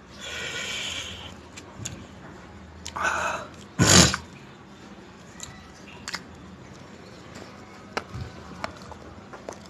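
Close-miked eating sounds of chicken curry and naan eaten by hand: a rustling as the naan is worked in the curry, a loud wet bite about four seconds in, then scattered small clicks of chewing and lip smacks.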